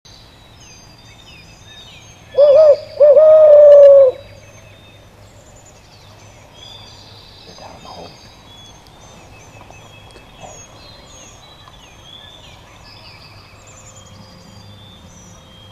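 A loud hooting call close to the microphone about two seconds in: a short wavering note, then a longer drawn-out note that falls slightly. Songbirds chirp throughout, and a faint distant call comes about eight seconds in, which the hunters take for a crow.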